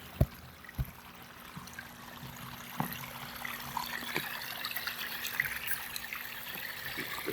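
Koi pond waterfall trickling and splashing steadily, growing gradually louder. A couple of soft knocks come in the first second.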